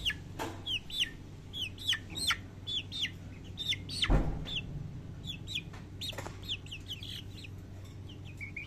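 White bantam chickens peeping: short, high calls that drop in pitch at the end, two or three a second. A few thumps break in, the loudest about four seconds in.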